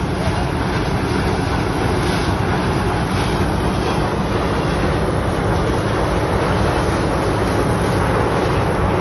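Steady engine noise from farm machinery, mixed with wind rushing over the microphone.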